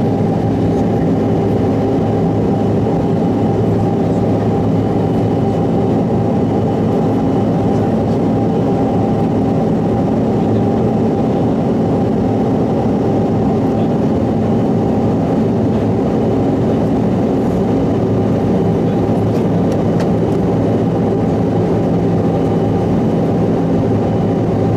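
Steady cabin drone of a Bombardier CRJ900ER climbing after take-off: its rear-mounted General Electric CF34 turbofans and the rush of air, heard from a window seat, even and unchanging, with a few steady hums running through it.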